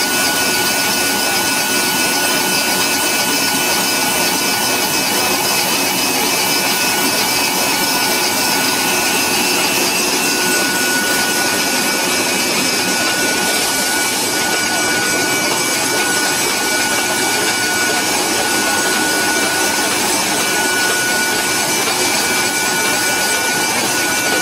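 Machinery of a drip-irrigation pipe production line running: a loud, steady mechanical noise with a continuous whine that drops in and out in the second half.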